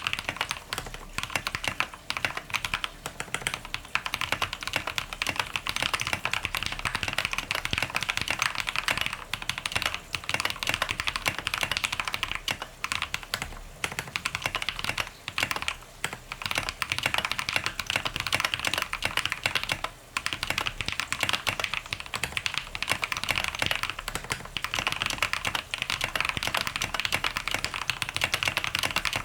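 Fast, continuous typing on a custom mechanical keyboard with lubed Tecsee Diamond switches, SA-profile keycaps and an aluminium plate in an acrylic tray-mount case with a foam mod, broken by a few brief pauses.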